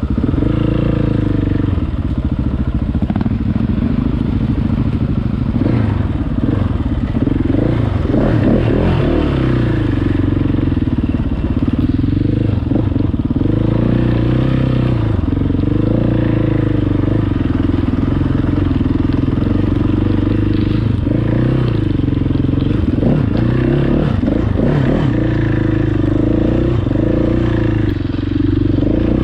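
A 690 enduro motorcycle's engine running under way, its pitch rising and falling again and again with the throttle.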